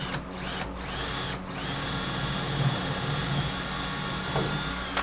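Cordless drill boring a quarter-inch hole through a hard saddlebag: a few short trigger pulses in the first second and a half, then a steady run that stops at the very end.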